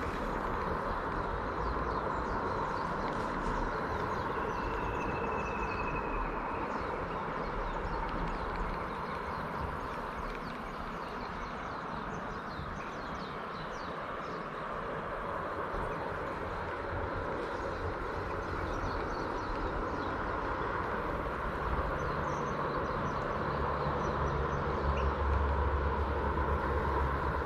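Steady outdoor background noise at the waterside, with a brief high note about five seconds in and a low rumble of wind on the microphone building near the end.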